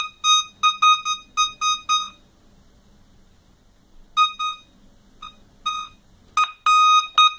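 Minelab Musketeer Advantage metal detector's speaker beeping as it powers up on a home-made three-cell 18650 lithium-ion battery pack and its knobs are turned: the conversion works. A quick run of short beeps for about two seconds, a pause, then scattered beeps and a few longer held tones near the end, all on the same pitch.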